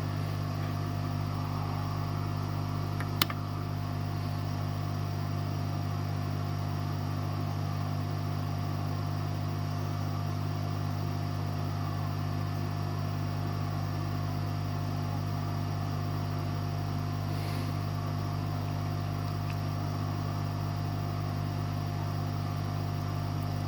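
Hot air rework station blowing steadily, a constant fan whir with a thin steady tone, as it heats a motherboard MOSFET to desolder it. A single sharp click about three seconds in.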